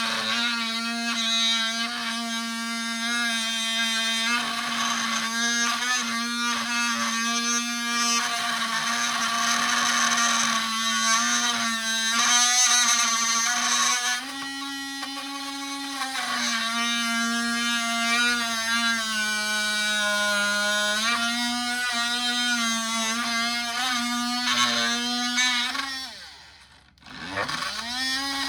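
Oscillating multitool with a titanium blade running and cutting through a 2x4, a steady high buzz whose pitch sags and recovers a little as the load changes. Near the end the tool winds down almost to a stop and then spins back up.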